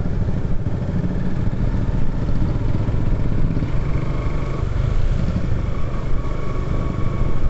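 Suzuki motorcycle's engine running steadily under the rider at cruising speed, with wind and road noise. A faint steady high tone joins about halfway through.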